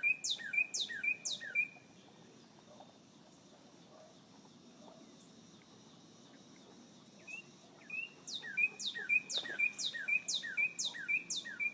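A songbird repeating a loud whistled phrase about twice a second, each note sweeping sharply down in pitch. It sings about four phrases at the start, pauses, then sings a run of about seven from about eight seconds in.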